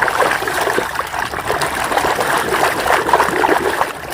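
Water running and splashing steadily as a muddy toy vehicle is rinsed clean.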